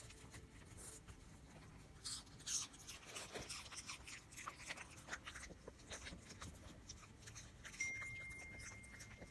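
Cavalier King Charles Spaniel puppy chewing small pieces of raw food, with irregular wet crunches and clicks of its teeth. A thin, steady high tone comes in near the end.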